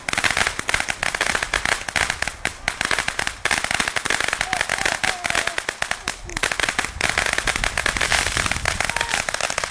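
Fireworks crackling: a dense, continuous run of rapid small pops and bangs that goes on without a break.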